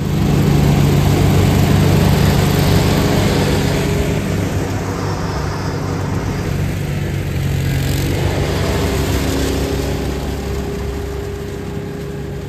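A Cub Cadet 982 garden tractor running under way while towing a Trac Vac leaf vacuum, whose 5-horsepower horizontal-shaft engine runs at the same time. It is loudest in the first couple of seconds and grows slowly fainter as the rig moves away.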